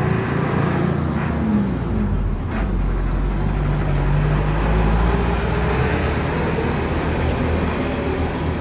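Steady motor-vehicle engine and traffic noise: a continuous low engine rumble with a light click about two and a half seconds in.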